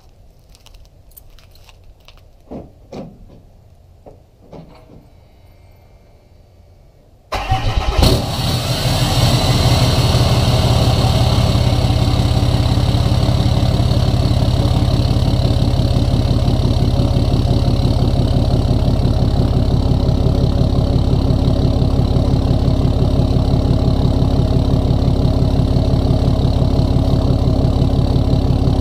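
2015 Dodge Ram's 6.7-litre Cummins straight-six turbo diesel, EGR deleted and running through a 4-inch straight pipe, cranks and starts suddenly about seven seconds in, then settles into a steady idle. Before the start there are only a few faint knocks.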